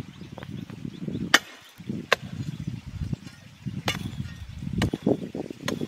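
A hoe chopping and scraping into stony earth: a steady crunch of soil, with about five sharp clicks spread through the strokes.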